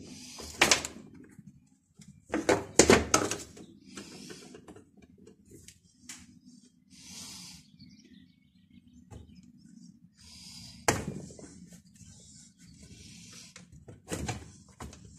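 Hand tools and the plastic-and-metal housing of a Zomax chainsaw being handled on a metal workbench while its anti-vibration mounts are worked on: a few sharp knocks and clinks, several close together near the start and single ones later, with light scraping and rustling between them.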